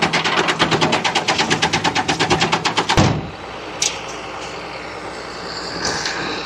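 A machine rattling fast and evenly, about nine sharp strokes a second, cutting off suddenly about three seconds in. A quieter steady drone with a few faint clicks follows.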